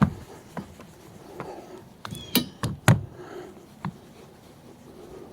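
A few sharp knocks and clicks, the loudest three coming close together about two and a half seconds in, with another a second later.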